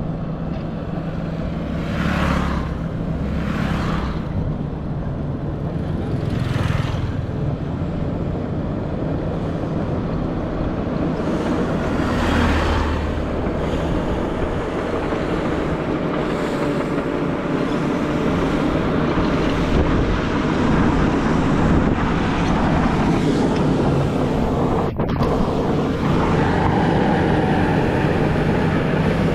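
Diesel engines of heavy earthmoving machinery running steadily, with a few short hissing rushes, about two, four, six and twelve seconds in.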